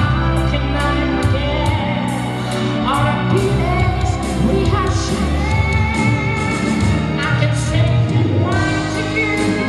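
A man singing into a handheld microphone over amplified backing music, with a steady bass line and a regular beat. He holds long notes with a wavering vibrato.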